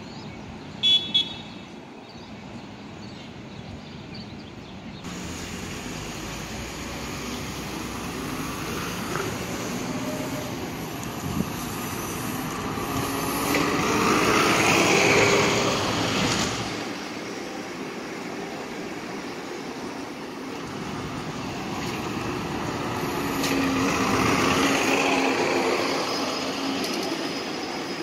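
MTA city buses driving past close by: engine and road noise swell as one bus passes around the middle, then build again as a second bus approaches near the end. About a second in there are two brief, loud, high-pitched toots.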